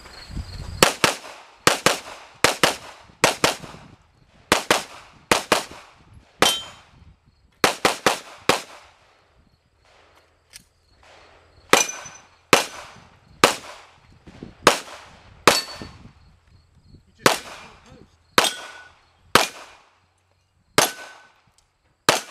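Pistol shots on a range, fired fast and mostly in close pairs at first, then, after a short pause near the middle, slower single shots about one every second or less. Several shots are followed by the brief ring of steel targets being hit.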